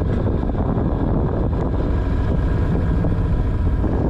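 Small jon boat under way: a steady motor hum with heavy wind buffeting the microphone.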